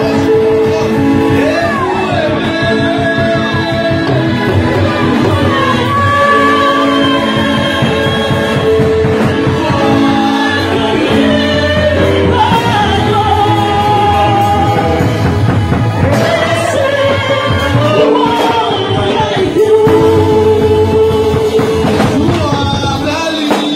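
Live gospel band playing: an electronic keyboard holding chords, a drum kit and a hand drum keeping a fast beat, with singing over the top.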